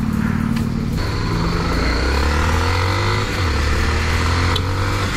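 Motorcycle engine pulling away from a junction, its pitch rising as it accelerates, then dropping at a gear change about three seconds in and running steadily after. Wind rushes over the microphone once it is under way.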